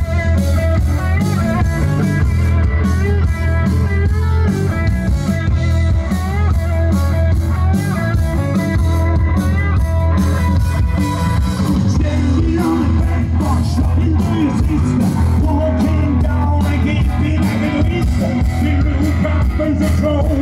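A rock band playing loudly through a PA, with drums, bass and electric guitar and a voice singing.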